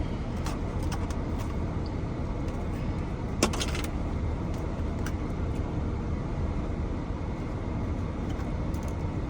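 Steady low rumble of a car engine idling, heard from inside the car, with a few light clicks and one sharper click about three and a half seconds in.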